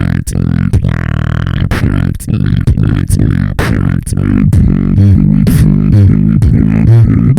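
Vocal beatboxing: deep, shifting bass tones made with the voice, under a rapid run of sharp click and snare-like hits.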